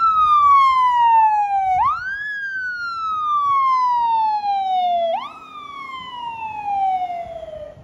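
Emergency vehicle siren in wail mode. Each cycle climbs quickly, then slides slowly down over about three seconds, with fresh climbs about two and five seconds in. The last sweep is quieter, and the siren stops near the end.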